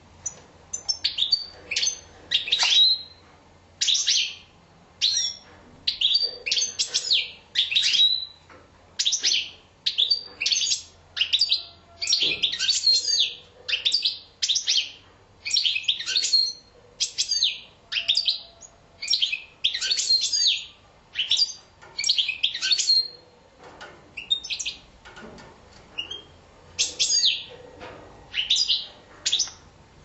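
Caged finches, European goldfinches kept with canaries, singing: short, high, twittering phrases, one after another every second or so.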